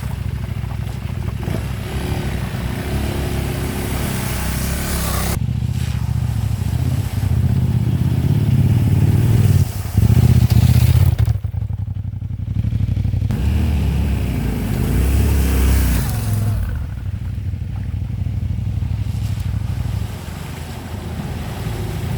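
Dual-sport motorcycle engine running on a trail ride, its revs rising and falling with the throttle. It is loudest about ten seconds in and eases off near the end.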